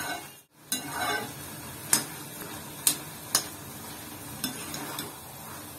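Flat metal spatula stirring soft pumpkin and jaggery in a kadai, scraping and tapping the pan in sharp clicks about once a second, over a steady low sizzle as the mixture cooks down.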